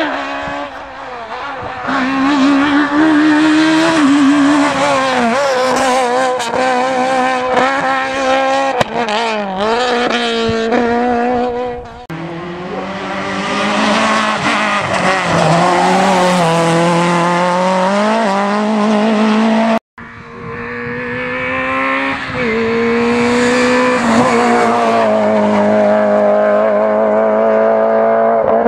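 Rally hatchbacks, among them a Peugeot 206 and a Peugeot 106, driven hard past the microphone in three separate passes. Their engines rev up and drop back in pitch through gear changes and braking, with tyre squeal at times.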